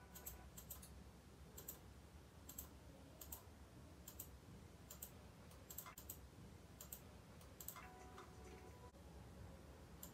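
Computer mouse clicking faintly, a short pair of clicks roughly once a second, over a low hum.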